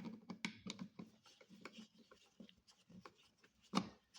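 Irregular small clicks and scrapes of a screwdriver working an electrical outlet's mounting screws into the box, with one louder click near the end.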